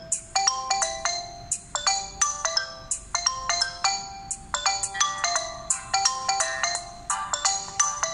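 Smartphone ringtone for an incoming call: a quick melody of short, sharply struck notes, several a second.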